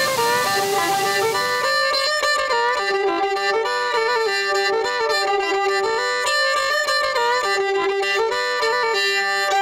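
Fiddle bowing a melody, the notes stepping up and down about every half second.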